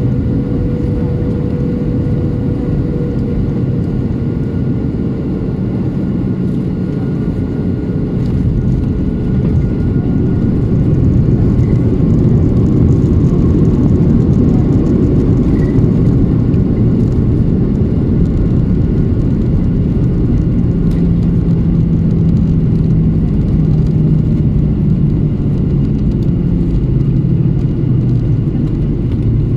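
Cabin noise of a Boeing 737-800 landing, heard from a window seat over the wing: CFM56 engine hum with a steady whine that drops slightly in pitch about five seconds in. From about ten seconds in, a louder rumble sets in as the airliner rolls out on the runway.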